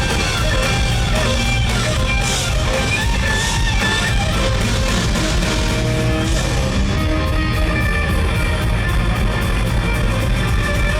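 Live rock band playing loud, with electric guitar to the fore over bass and drums, in a passage without singing; a steady cymbal pulse comes in about seven seconds in.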